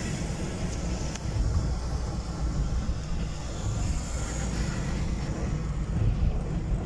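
Steady low rumble of a moving coach bus, its engine and road noise heard from inside the cabin.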